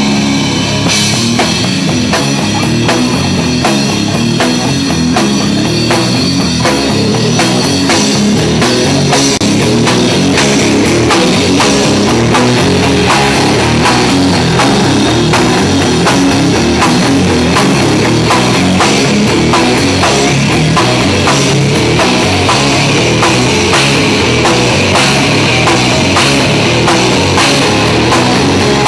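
Live rock band playing loud: electric guitars and bass over a full drum kit keeping a steady beat.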